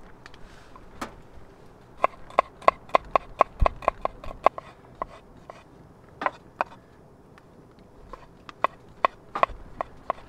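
A knife cutting garlic and mushrooms on a wooden cutting board. It makes a quick run of sharp taps, about four a second, then a pause and a few single taps, and a second run near the end.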